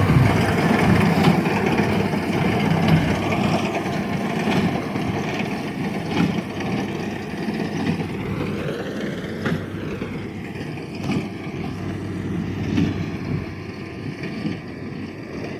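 Tractor engine running steadily while pulling a hay baler, slowly fading as it moves off, with a few short knocks from the machinery.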